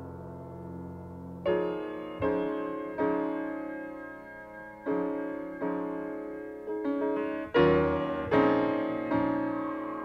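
Instrumental keyboard music: a held low drone gives way, about a second and a half in, to a string of struck chords, each starting sharply and dying away, roughly one a second.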